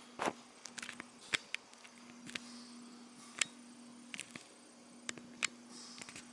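A faint steady low hum that breaks off briefly about four seconds in, with about a dozen sharp, irregular clicks and taps over it.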